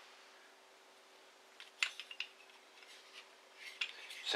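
Hard plastic angle inserts of a corner clamp set clicking against each other as they are handled: a few light clicks about two seconds in and some fainter ones near the end, over a faint steady hum.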